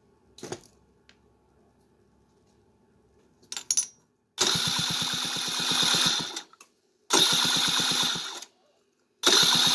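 Electric starter on a Kymco 150cc moped cranking the engine in three bursts, each with a fast, even chugging, after a couple of short clicks. The engine turns over without firing.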